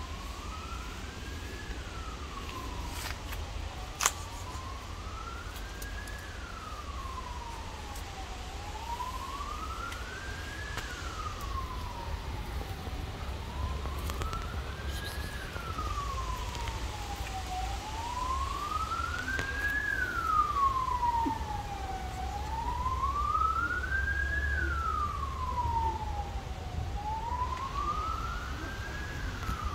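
A siren wailing, its pitch rising and falling slowly, about one cycle every four and a half seconds. A steady low rumble runs underneath, and there is one sharp click about four seconds in.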